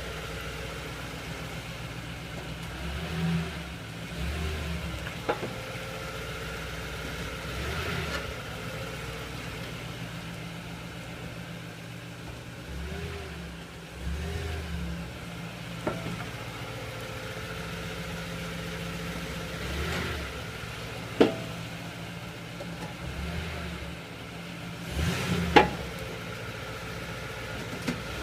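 Toyota Tundra pickup running with a steady engine drone, broken by several sharp clunks at irregular intervals, the loudest two near the end. The clunk is an unexplained noise that the owner is trying to identify.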